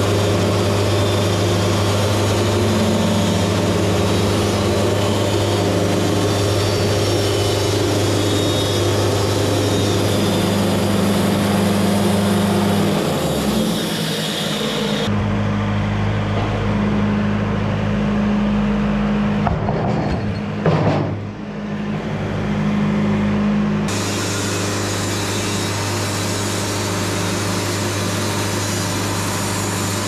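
Wood-Mizer LT70 Super Wide band sawmill running as its blade cuts through a maple log, a loud steady machine hum over the sawing. For several seconds in the middle the sound turns duller, with a brief surge and dip near the end of that stretch.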